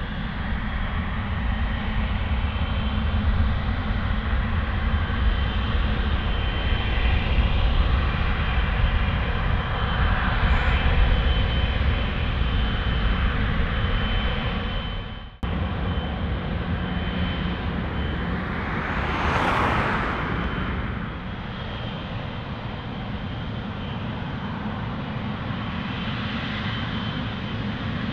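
Airbus A330 airliner's jet engines heard as a steady low rumble during its departure. The sound breaks off abruptly a little past halfway and carries on as a quieter jet rumble, with a brief hiss swelling and fading a few seconds later.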